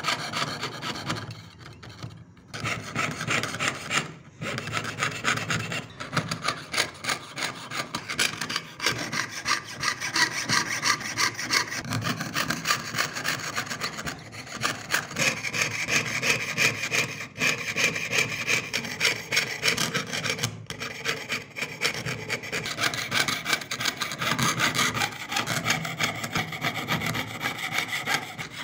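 Jeweler's saw cutting through a thin engraved metal sheet: fast, even back-and-forth strokes of the fine blade, rasping against the metal, stopping briefly a few times as the cut is turned.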